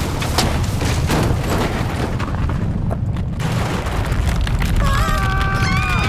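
Cartoon destruction sound effects: a steady heavy rumble with repeated crashes and booms. Several long wavering tones join in near the end.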